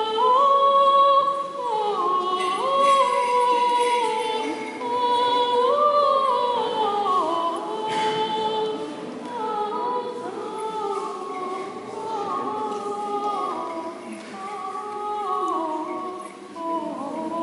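Women's choir singing Armenian Apostolic liturgical chant a cappella, slow held notes that step up and down.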